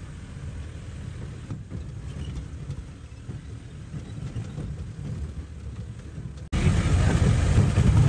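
Off-road jeep's engine and tyres rumbling, heard from inside the cabin, as it drives a rough, muddy track. About six and a half seconds in, the sound jumps suddenly louder, with more hiss over the rumble.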